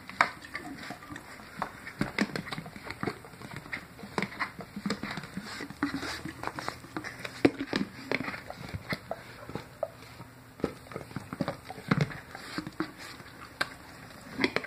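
Great Dane licking and smacking at peanut butter: wet tongue clicks and lip smacks, coming irregularly several times a second.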